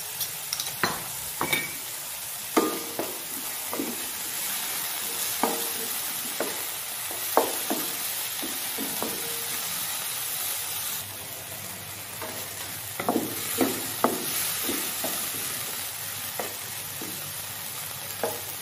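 Sliced chicken breast frying in oil in a non-stick frying pan, with a steady sizzle. A spatula knocks and scrapes against the pan again and again as the pieces are stirred and turned.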